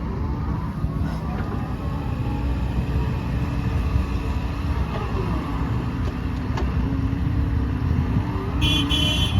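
JCB JS160 NLC tracked excavator's JCB diesel engine running with a steady low rumble, with faint rising and falling hydraulic whine as the machine works. A brief high squeal comes near the end.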